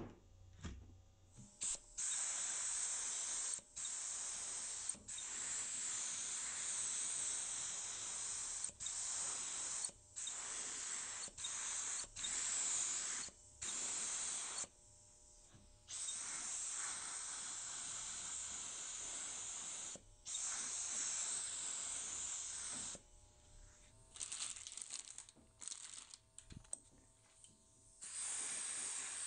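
Compressed-air paint spray gun spraying base coat: a loud, even hiss coming in about a dozen long bursts as the trigger is pulled and released. It stops for several seconds, with only scattered small crackles, and comes back near the end.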